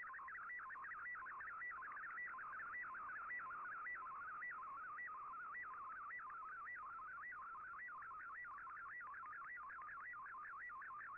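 Shortwave digital-mode audio from an Icom IC-R8600 tuned to Shortwave Radiogram: an MFSK picture transmission being received. It sounds as a warbling, sliding tone with a short high beep that repeats a little under twice a second, and the warble gets busier about halfway through as the picture's content changes.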